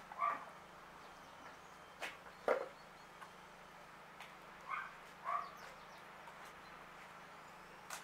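Short animal calls, heard three times (once at the start, then two quick ones a little past the middle), with two sharp knocks about two seconds in. The second knock is the loudest sound.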